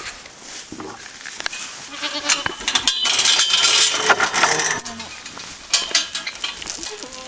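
Goats bleating a few times, with a loud rustling, crunching noise in the middle.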